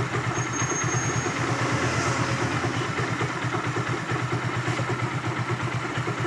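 Hero Glamour single-cylinder four-stroke motorcycle engine idling steadily with an odd extra noise from the engine, which the mechanic traces to a jammed bearing on the clutch side after a poor engine rebuild.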